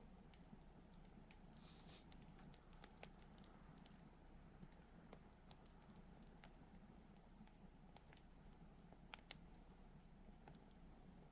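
Quiet wood campfire crackling, with scattered irregular small pops and ticks over a faint steady background.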